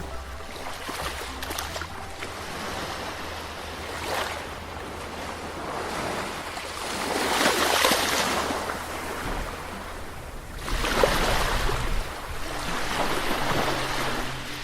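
Caribbean sea waves washing onto the shore, surging louder twice, about seven seconds in and again about eleven seconds in.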